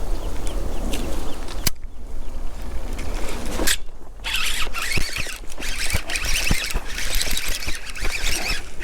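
Fishing reel being cranked to retrieve line, making a rapid zipper-like rasp with a run of short clicks in the second half, over wind rumble on the microphone.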